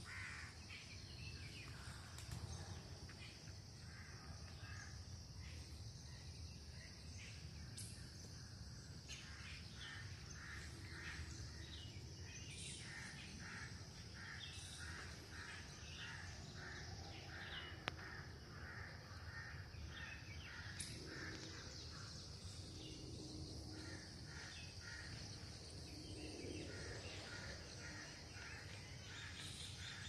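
Woodland birds calling in runs of short, quickly repeated notes, over a steady high-pitched buzz that runs throughout. A single sharp click sounds about halfway through.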